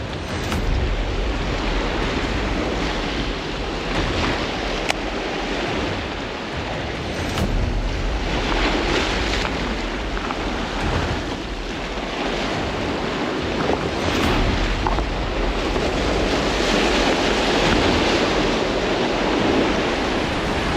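Waves washing against a rock jetty, swelling and easing in a steady wash, with wind buffeting the microphone in a low rumble underneath.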